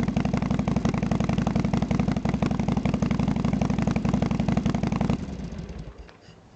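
Harley-Davidson Sportster XL883's air-cooled V-twin idling steadily through Vance & Hines pipes with a Kijima silencer insert, then stopping about five seconds in, the sound dying away within a second.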